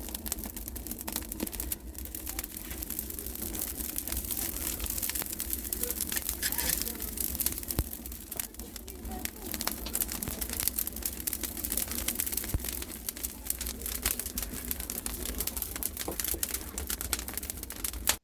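Wood fire crackling in a clay bread oven, with many small irregular snaps over a steady rustling hiss.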